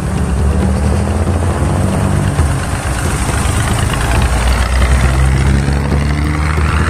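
Heavy diesel vehicle engine idling close by, a steady low rumble, over an even rushing noise.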